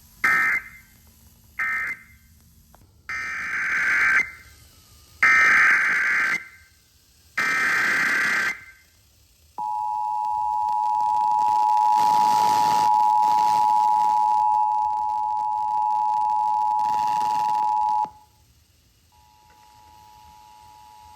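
Emergency Alert System data and attention tones. Two short screeching data bursts close the previous alert with its end-of-message code. Three longer screeching bursts carry the next alert's header, and then the steady two-tone EAS attention signal sounds for about eight seconds, cuts off, and comes back fainter about a second later.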